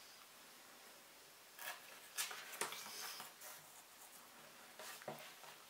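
Faint rustling and scraping of paper being handled, with a few light clicks, in two short spells.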